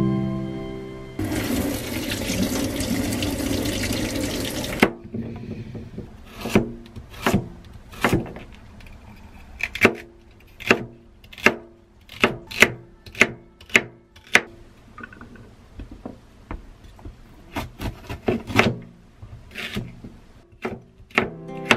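Water running from a tap for a few seconds near the start, then a kitchen knife chopping celery and red bell pepper on a wooden cutting board: separate sharp knocks, irregularly spaced, sometimes in quick runs of two or three.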